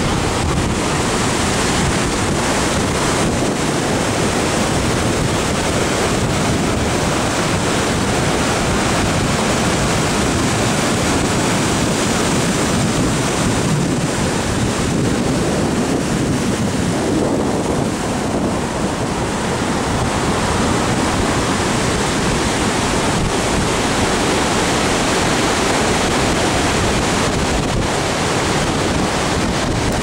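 Big ocean surf breaking and washing over a rocky shore, a steady loud rush of white water, with wind buffeting the microphone.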